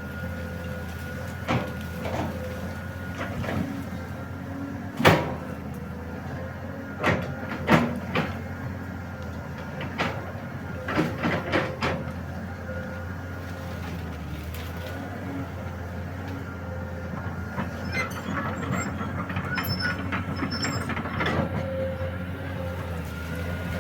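Excavator's diesel engine running steadily with a thin steady whine above it, broken by sharp knocks and cracks several times, loudest about five seconds in, around seven to eight seconds and ten to twelve seconds.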